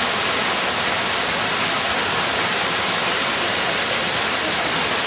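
Steady rush of falling water from a decorative waterfall, an even hiss with no breaks.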